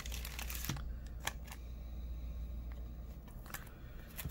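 Trading cards being handled, with a few short clicks and light rustles of card stock and plastic as the cards are slid and shuffled, over a low steady hum.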